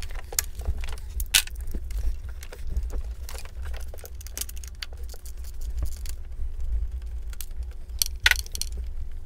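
Irregular metallic clicking and jingling of a hand tool working a small Torx bolt loose, over a steady low rumble.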